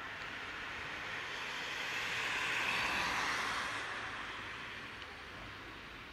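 A vehicle passing on wet asphalt: a tyre hiss that swells to its loudest about halfway through, then fades away.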